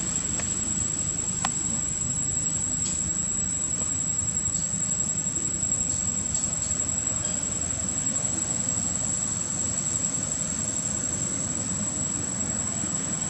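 Steady outdoor ambience: an unbroken high-pitched insect drone, as of cicadas, over a low, even rumbling noise, with a single faint click about a second and a half in.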